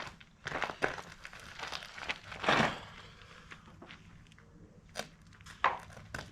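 Scattered rustling, crinkling and light clicks of someone handling things and moving about, with a louder, longer rustle about two and a half seconds in and a couple of sharp ticks near the end.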